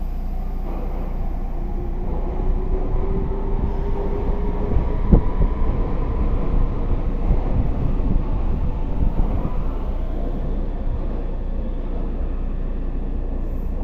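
Meitetsu 2000 series electric train pulling out of an underground platform: a motor whine rising slowly in pitch, a single clunk about five seconds in, then the rumble of the cars rolling past and away.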